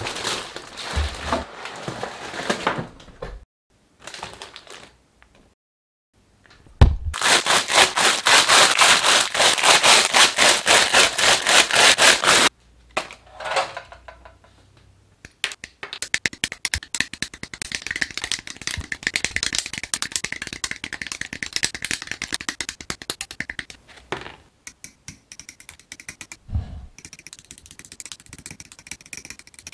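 A plastic model kit being handled: a cardboard box and bagged plastic runners rustling and crinkling. The loudest stretch is several seconds of rapid crackling about a quarter of the way in. Near the end, hobby side-cutters snip plastic from a part.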